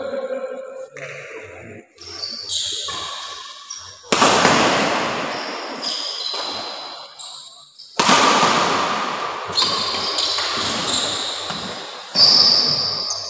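Badminton rally in a large hall: rackets striking the shuttlecock, with three loud hits about four seconds apart that echo on through the hall, and shoes squeaking on the court in between.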